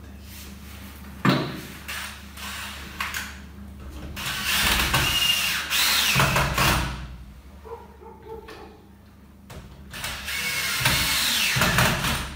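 Cordless drill-driver driving screws through a wooden wall rail into wall plugs, in two runs of two to three seconds each, the motor's whine rising and then falling as each screw goes home. A sharp click comes about a second in.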